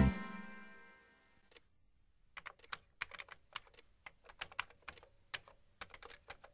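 The last chord of a music cue dies away in the first second. After a short silence, irregular keyboard typing clicks start at about two seconds in and go on.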